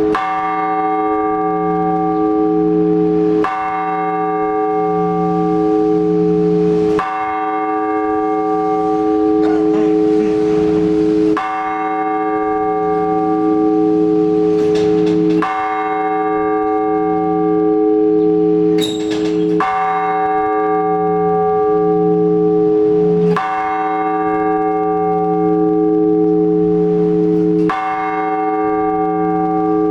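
A single large Orthodox church bell is struck slowly and evenly, about every four seconds, eight strokes in all. Each stroke rings on with the same steady, humming tone, its low note pulsing, until the next. This is the measured tolling of one bell (blagovest) that calls the faithful to the all-night vigil.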